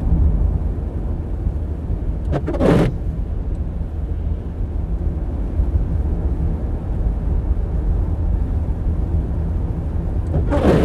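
Steady low rumble of a car's tyres and engine heard from inside the cabin while driving on a snow-covered road. Two brief swishes come about eight seconds apart, one a few seconds in and one near the end.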